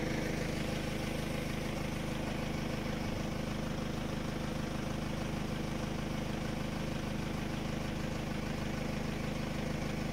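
Old Arnoux tractor's diesel engine idling steadily, its alternator charging the run-down battery.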